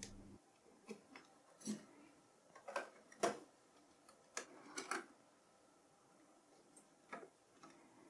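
Faint, scattered metal clicks and taps from a CPU socket's retention lever being unlatched and its load plate lifted. There are about eight short ticks, bunched between about one and five seconds in, and one more near the end.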